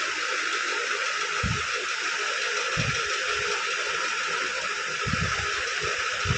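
Steady, even hiss, with a few soft low thumps at irregular intervals.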